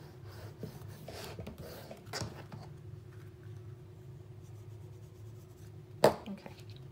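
Bone folder rubbed along folded cardstock, pressing the cover onto a paper notepad: soft scraping strokes over the first couple of seconds, then quieter paper handling and a single sharp tap about six seconds in.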